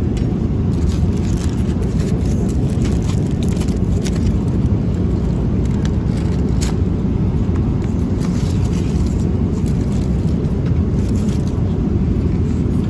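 Steady low rumble of a Boeing 777 cabin in flight, the engine and airflow noise. Light crinkles and clicks come now and then as a foil-covered meal tray is handled.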